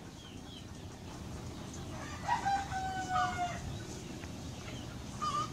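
A rooster crowing once, about two seconds in: a long held note that falls slightly at the end. A shorter call follows near the end.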